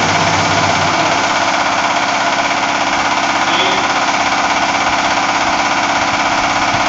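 Resistance seam welding machine running, a steady buzzing, crackling noise with a fast pulsing texture; its deep low hum drops out about a second in.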